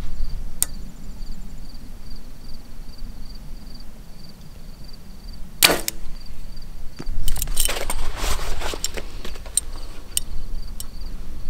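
Mathews VXR compound bow shot a little past halfway through: one sharp snap as the string is released. About two seconds later there is a louder stretch of rushing noise.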